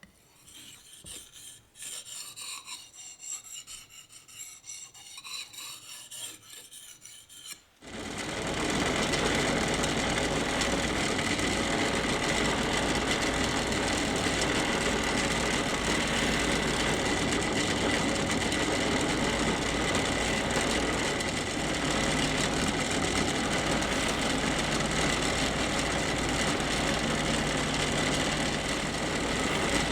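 Hand file scraping in repeated strokes on steel for about eight seconds. Then a power tool motor starts suddenly and runs steadily and loudly, with a constant high whine over a low hum.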